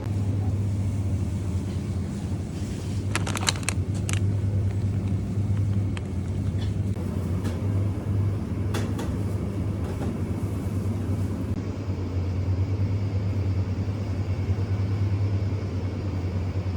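Steady low rumble of a road vehicle heard from inside, with a few light clicks about three to four seconds in and again around nine seconds.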